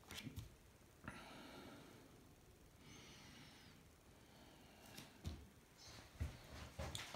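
Near silence: room tone with a few faint clicks and soft low knocks, typical of a phone being handled.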